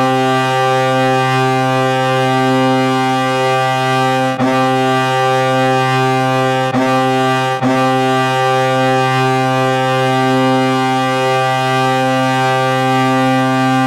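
Colorado Avalanche playoff goal horn blowing one long, steady low blast, broken by three very short gaps in the middle.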